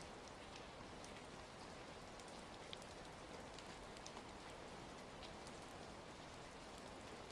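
Steady rain ambience mixed with scattered small pops of a crackling wood fire.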